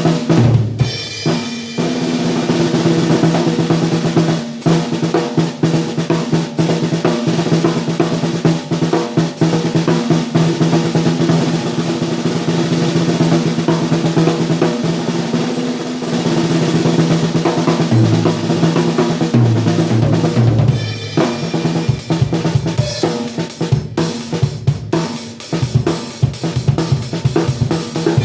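A 6×14 inch seamless acrylic snare drum played on a drum kit, still at its out-of-the-box factory tuning: fast snare strokes, rolls and rimshots with bass drum under them, and a run of lower drum notes about two-thirds of the way through.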